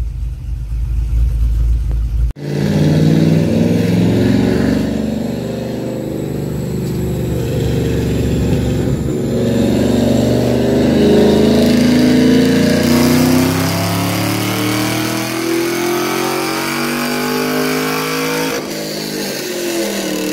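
Shelby Mustang V8 rumbling at idle for the first couple of seconds. After a sudden cut, a sports-car engine is revved up and down again and again, its pitch climbing and falling.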